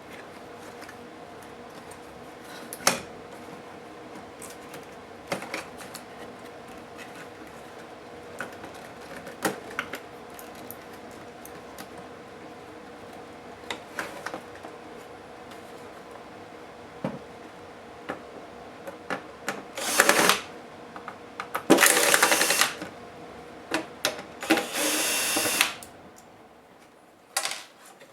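Small laptop parts and screws clicking and tapping as they are handled, then three short runs of a small electric screwdriver, about 20, 22 and 25 seconds in, each lasting around a second.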